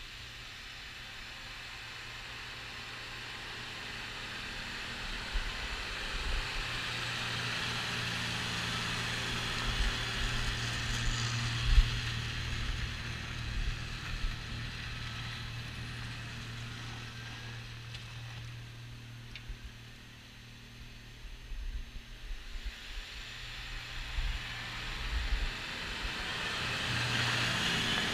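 Compact cab tractor's engine running steadily under load while its rear-mounted snowblower throws snow, a low engine hum under a rushing whoosh. It grows louder toward the middle, fades about two-thirds of the way through, and swells again at the end as the tractor passes close.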